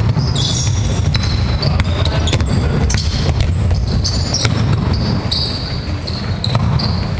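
Basketball dribbled on a wooden gym floor, with repeated sharp bounces and the short high squeaks of players' shoes on the court.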